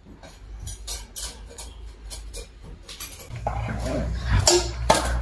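Scattered clicks and scrapes of a knife and hands working a fish at a sink, then, about three seconds in, a dog nosing and eating at a metal floor bowl, louder and more rumbling, with a few sharp knocks.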